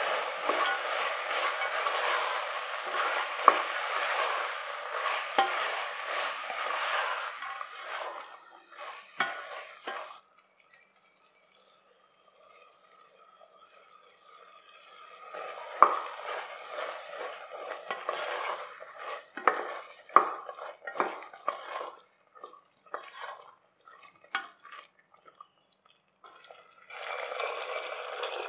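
Peas, mushrooms and masala sizzling in a steel pressure cooker while a wooden spatula stirs and scrapes them. After a lull about ten seconds in, a steel cup and spoon clink and scrape as cashew paste goes in. Near the end, water is poured into the pot.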